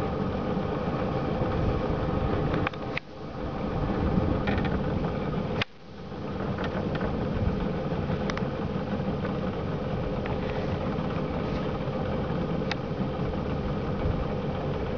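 A boat engine idling steadily. Its level drops sharply twice, about three and six seconds in, and builds back up each time.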